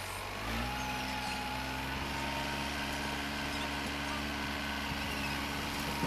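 Farm tractor engine pulling a hay wagon, rising in speed about half a second in and then running steadily.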